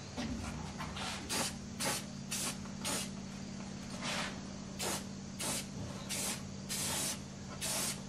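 Aerosol spray paint can hissing in about a dozen short bursts, one or two a second, with one longer burst near the end. A steady low hum runs underneath.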